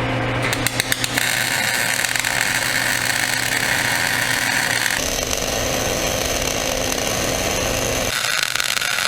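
Electric arc welding on the plow's steel moldboard. A few short crackles as the arc strikes, then a steady crackle of the arc for about seven seconds, changing tone about halfway and stopping near the end. A low steady hum runs underneath.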